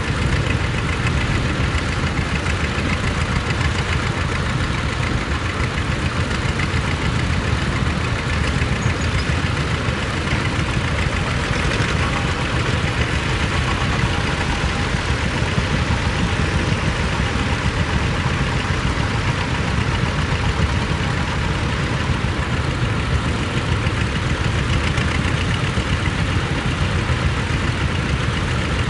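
Small tractor engines running steadily while plowing, with a low, rapid pulse and no break.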